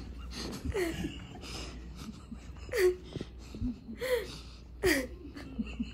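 A person's voice making short, breathy squeals, each dropping in pitch, heard as an annoying noise. There are several, and the loudest three come about a second apart in the second half.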